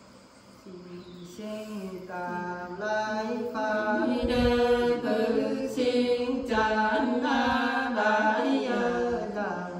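Three women singing together unaccompanied in Nùng folk style, a slow chant-like melody of held notes. The voices come in about a second in, swell, and fade out near the end.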